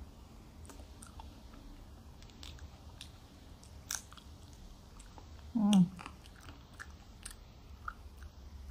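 Close-up eating sounds: a person chewing and biting food, with scattered small clicks and crunches. A short vocal sound falling in pitch, like a hum, comes about five and a half seconds in and is the loudest thing heard.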